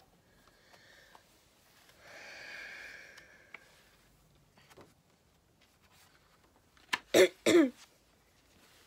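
A woman clears her throat with two quick coughs near the end, after a faint breathy sound a couple of seconds in.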